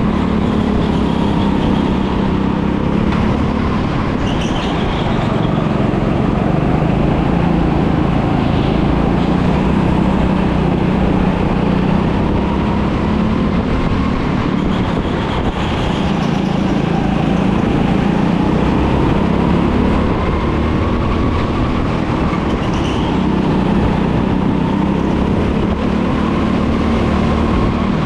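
Go-kart engine running continuously at speed, its pitch rising and falling every few seconds as it speeds up and slows.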